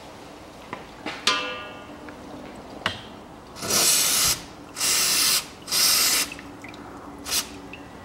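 Aerosol cleaner can spraying in three short hissing blasts and a brief fourth, washing the drain-plug seat of an automatic transmission pan. A single metallic clink with a short ring comes about a second in.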